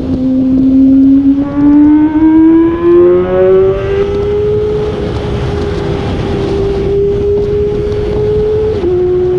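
Kawasaki ZX25R's 250 cc inline-four engine under way, its pitch rising steadily for about five seconds, holding, then dropping in a quick step near the end. Wind rushes over the microphone as speed builds.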